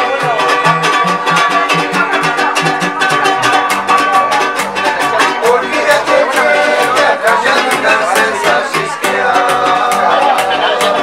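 Purépecha folk string band playing: violins bowing the melody over a strummed guitar with a steady rhythm and plucked double-bass notes underneath.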